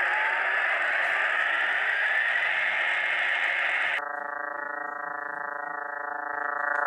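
Electronic 'moon sound' audio: a hiss with two tones slowly rising in pitch, which cuts off abruptly about four seconds in and gives way to a steady, slightly quieter drone of many even tones stacked together.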